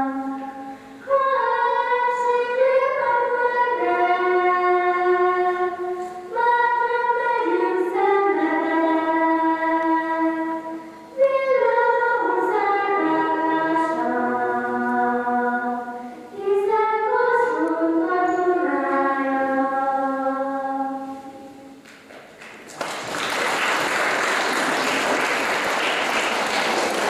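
Two girls singing a song unaccompanied into microphones, in phrases with short breaks between them. The singing ends about 22 seconds in and is followed by applause.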